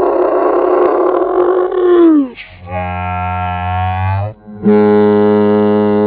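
A girl's voice making wordless noises: a rough, strained yell that slides down in pitch about two seconds in, then two long held low droning notes. The first note is very low and the second is about twice as high, with a short break between them.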